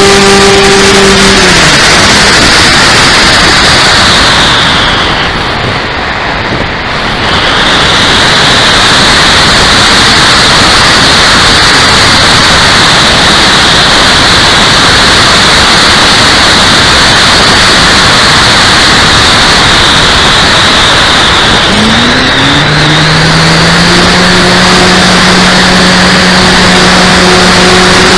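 Electric brushless motor and propeller of an RC P-51D Mustang model whining steadily, then dropping away about a second and a half in as the throttle is cut. Through the glide, mostly the rush of air over the onboard camera is heard. About 22 s in, the motor whine rises again as power comes back on and holds steady.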